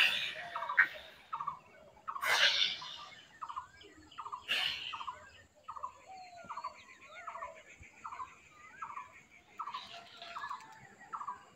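Rohu fish pieces frying in hot oil in a kadai, with short bursts of loud sizzling about a second, two and four-and-a-half seconds in as pieces go into the oil. Between the bursts the oil fries quietly, while a bird calls over and over in a quick, regular rhythm of about two calls a second.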